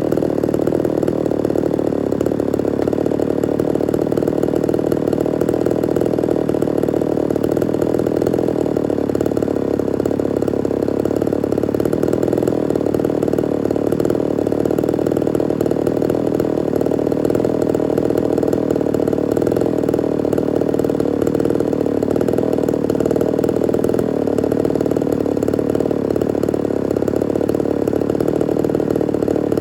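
Ported Homelite Super XL-130's two-stroke chainsaw engine running steadily, without revving up or down.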